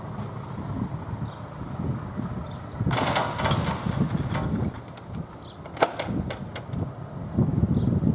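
Wind rumbling on the microphone, with a burst of hiss about three seconds in. A sharp click near six seconds in, then a few fainter ones, come from the wooden level-crossing gates being worked by hand.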